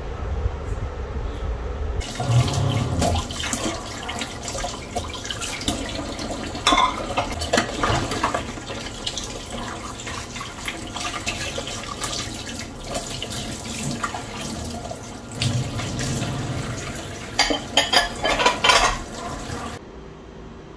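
Kitchen tap running into a sink while a cup and dishes are washed by hand, with the water rushing steadily. Sharp clinks of crockery sound now and then, with a cluster of louder clinks near the end.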